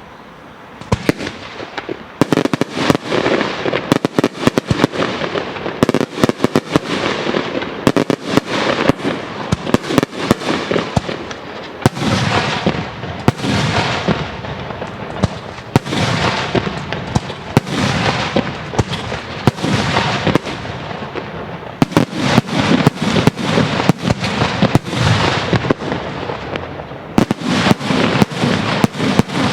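Daytime fireworks display (Italian diurno) firing a dense barrage of rapid, overlapping bangs with a steady din between them. The barrage builds up about a second in.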